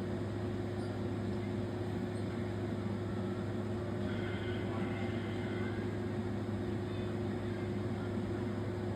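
Steady low electrical hum under a faint background murmur of voices, with no commentary.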